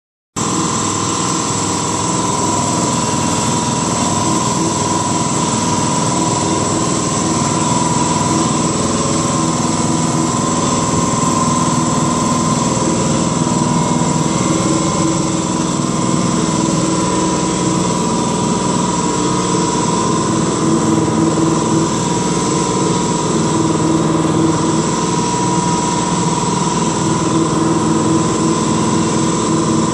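Random-orbital (dual-action) sander running steadily on a car's wet paint, wet sanding with 3000-grit abrasive, with a constant whine.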